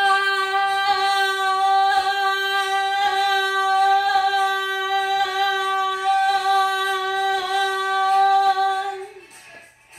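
A woman's voice holds one long, loud sung note at a steady pitch for about nine seconds, then breaks off. Faint music with a regular beat about once a second runs underneath.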